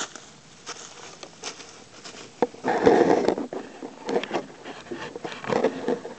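Leafy branches rustling and dry fallen leaves crackling as someone moves through undergrowth and pulls at branches overhead, in irregular bursts with a louder rustle about three seconds in.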